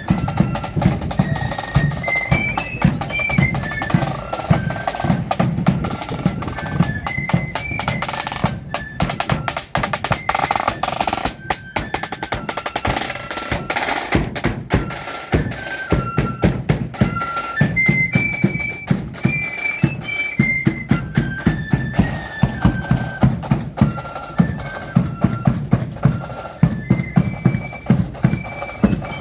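Marching flute band playing: flutes carry a tune in unison over snare drum rolls and a steady bass drum beat.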